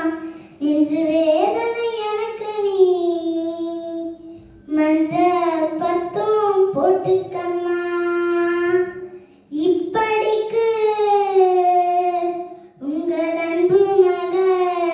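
A girl sings a Tamil folk song solo and unaccompanied. Her long held phrases bend in pitch, with three short breaks for breath.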